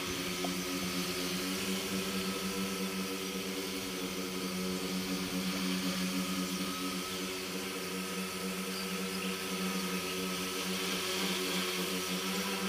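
Electric tricopter's three propellers and motors humming steadily in flight, one even pitch with a strong low note throughout.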